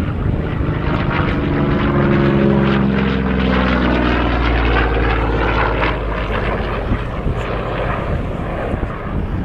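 Propeller-driven piston-engine aircraft flying past, its engine drone dropping in pitch as it goes by, about two to four seconds in.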